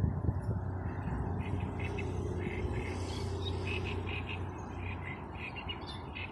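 Frogs croaking from a reedy pond: a run of short, repeated calls starting about a second and a half in, over a low steady rumble.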